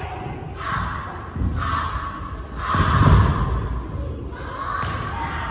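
Shorinji Kempo practitioners moving fast on a wooden gym floor: a run of short swishes from their uniforms and bare-foot steps, about one a second, with a heavy thud about three seconds in, echoing in a large hall.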